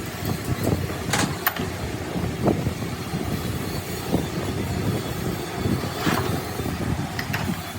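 Heavy machinery noise: a steady low mechanical rumble with a few sharp metallic clanks.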